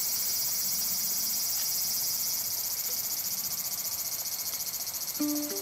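Steady, high-pitched chorus of insects with a fast, even pulse. Near the end a ukulele starts plucking its first notes.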